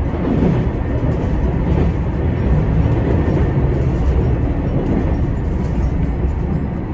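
Chizu Express HOT7000-series diesel train heard from inside the front car while it runs over multiple tracks: a steady low rumble of the diesel engine and wheels on the rails, with a few faint clicks.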